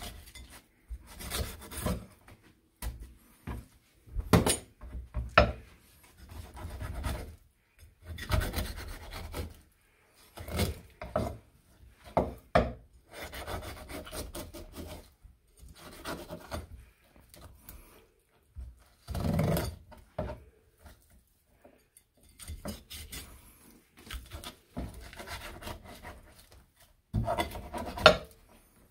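A kitchen knife rasping in irregular strokes as it cuts through a hōseki-kintoki bigeye's scaly skin and flesh on a plastic cutting board. The strokes have short pauses between them, and the loudest comes near the end.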